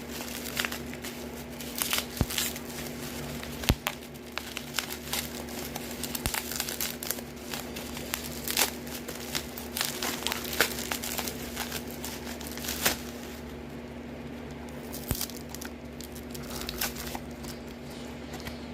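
Plastic packaging crinkling and tearing as a parcel is unboxed by hand, with many irregular crackles and clicks that thin out near the end.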